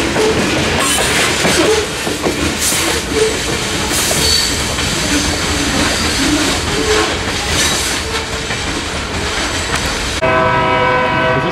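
Loaded stone hopper cars rolling past, their steel wheels clattering over the rail joints as the end of the train goes by. About ten seconds in, a diesel locomotive's air horn sounds a steady chord of several notes.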